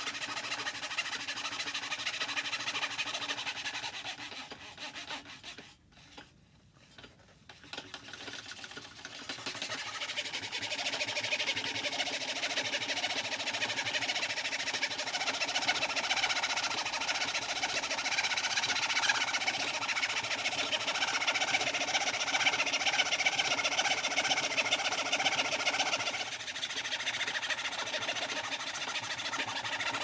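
Old treadle fretsaw running, its fine blade cutting rapidly up and down through two layers of plywood taped together. The sound dies away to near silence about five seconds in, then builds back up and runs on steadily.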